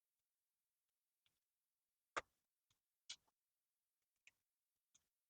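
A few short, sharp clicks and taps, unevenly spaced, the loudest about two seconds in: a screwdriver bit working at small security screws in a plastic vacuum-cleaner housing.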